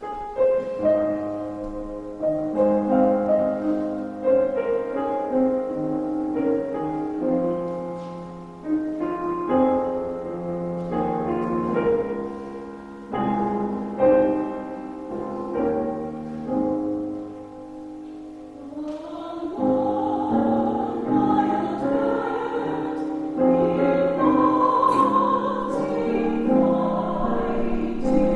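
Piano playing a slow hymn-like introduction, joined about two-thirds of the way through by a four-part vocal quartet singing with the piano.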